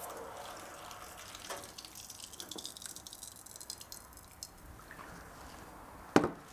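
Red-hot San Mai knife blade quenched in a drum of fast quench oil: the oil bubbles and crackles as the blade is worked back and forth to break up the vapour jacket. A single sharp knock near the end is the loudest sound.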